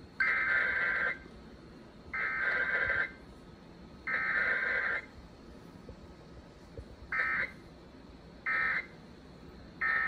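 Emergency Alert System Required Weekly Test data bursts coming from an FM radio's speaker: three buzzy, warbling bursts of about a second each, a second apart (the SAME header), then three short bursts near the end (the end-of-message code).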